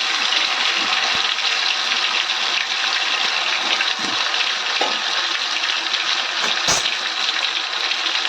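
Soya-chunk kola urundai balls deep-frying in hot oil: a steady, even sizzle with a few scattered pops.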